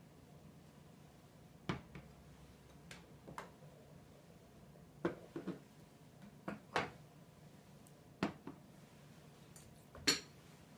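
Porcelain bowls, lids and a teapot being set down and handled on lacquer trays: about a dozen light clinks and knocks at irregular intervals, the loudest, briefly ringing clink near the end.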